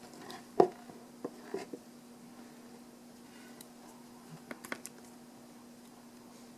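Thick cardboard pages of a Blu-ray disc book being turned by hand: a sharp tap about half a second in, a few lighter taps and brushing rustles just after, and a quick cluster of clicks near the five-second mark. A faint steady hum sits underneath.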